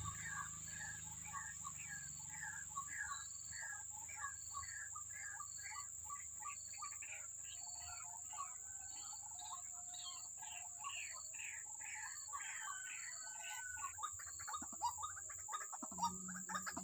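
White-breasted waterhen calling: a long run of repeated short notes, about two or three a second, busier in the middle. A steady high insect drone runs underneath.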